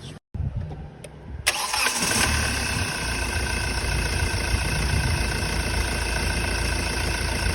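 Hyundai i20 diesel engine starting about a second and a half in, then settling into a steady idle.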